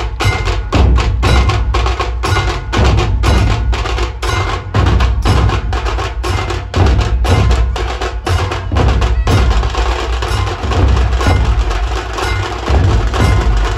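Dhol-tasha drum troupe playing: large barrel dhols beating a heavy, driving rhythm under the sharp, rapid strokes of tasha drums.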